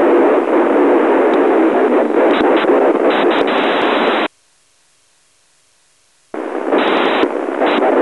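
Narrowband FM radio hiss from a satellite downlink on 145.8 MHz, heard through a software-defined radio receiver. The hiss cuts out abruptly about four seconds in and comes back about two seconds later, with a few short dropouts.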